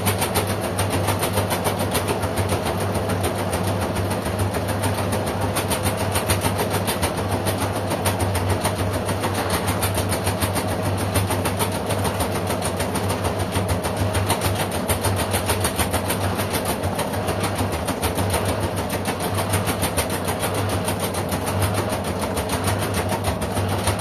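LG front-loading washing machine running a wash with a small load tumbling in the drum: a steady motor hum with a fast, even whirring above it.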